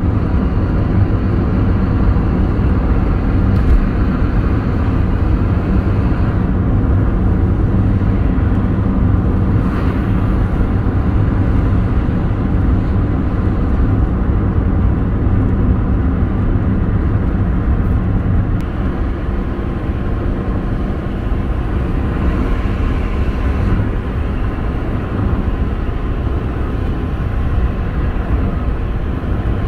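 Steady low road noise of a car driving at cruising speed, heard from inside the cabin: engine and tyres running on the road.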